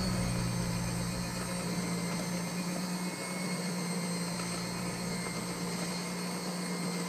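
Electric hand mixer running steadily, its beaters churning thin cake batter in a plastic bowl.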